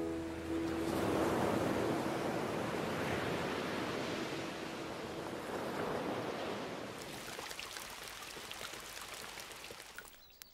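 Sea surf washing onto a beach: a steady rushing that slowly fades. A single held musical note lingers under it through the first half, and faint light ticks come in near the end.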